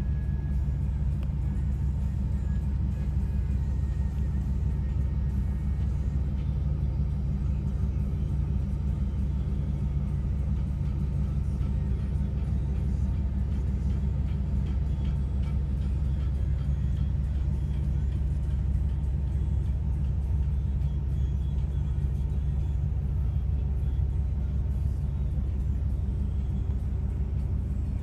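Steady low rumble of a Dodge Ram 3500's 5.9 L Cummins diesel engine, heard from inside the truck's cab.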